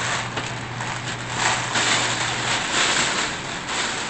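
Rustling and crinkling of plastic product packaging being handled, in uneven swells, over a low steady hum.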